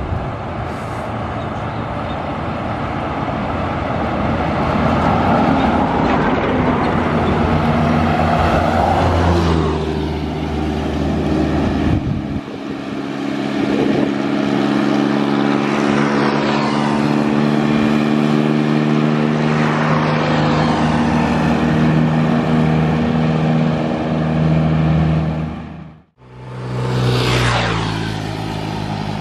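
Highway traffic passing close by: buses and trucks go past one after another, their diesel engines and tyres swelling and fading, with a steady engine hum through the middle. The sound breaks off abruptly a few seconds before the end, then another vehicle comes past.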